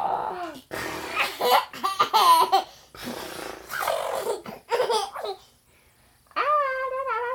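A toddler laughing hard in several bursts, then one long, high-pitched wavering vocal near the end.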